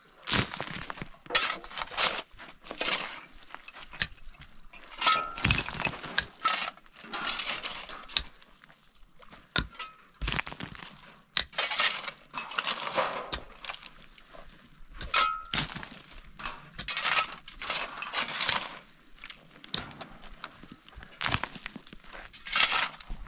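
Long-handled digging tools, a hoe and a pick, striking and scraping stony dirt in irregular strokes, with loose stones clinking. Now and then the metal blade rings briefly as it hits a stone.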